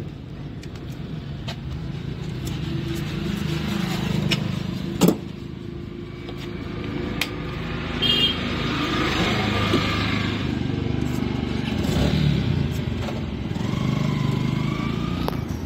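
Steady rumble of road traffic and vehicle engines, with scattered sharp clicks and one loud knock about five seconds in.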